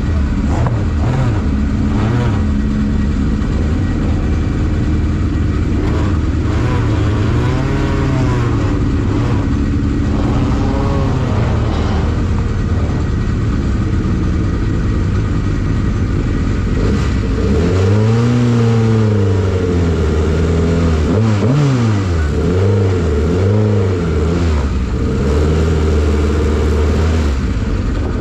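Van Diemen RF01 Formula Ireland single-seater's engine running hard at racing speed. The revs climb and drop over and over through gear changes, with the deepest drops and pick-ups in the second half.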